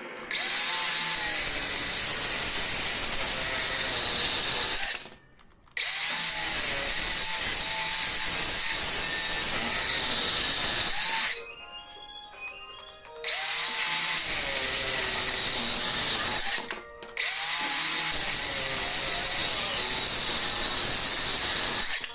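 Makita 18V brushless cordless circular saw running and cutting through wood in four long passes of about four to five seconds each, with short pauses between them. Background music plays underneath.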